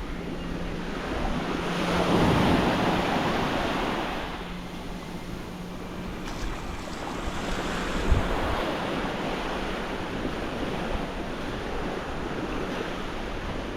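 Gentle waves washing onto a sandy beach, with wind buffeting the microphone. The surf swells loudest about two seconds in, and there is a brief thump about eight seconds in.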